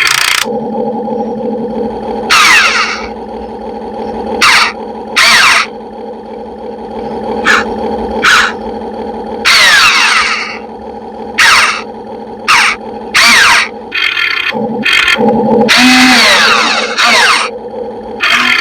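RC model excavator working: a steady motor whine runs throughout, broken by about a dozen short, loud, harsh bursts as the machine moves and digs.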